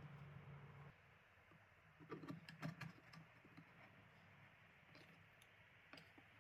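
Faint handling clicks and light knocks of a short PVC pipe against a plastic bucket lid as it is pushed into the lid's centre hole, bunched about two to three seconds in, with a few softer ticks later. A low steady hum stops about a second in.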